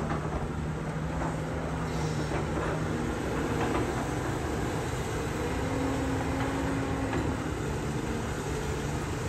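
Caterpillar 330D hydraulic excavator's diesel engine running steadily as the machine works, with a few faint knocks.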